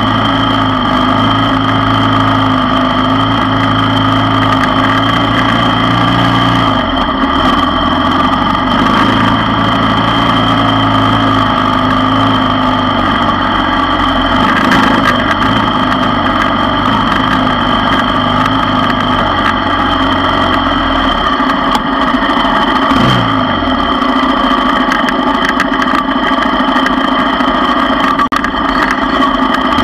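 ATV engine running at low trail speed, its note shifting with the throttle: it drops about seven seconds in and again around twenty-one seconds, with a brief falling glide soon after.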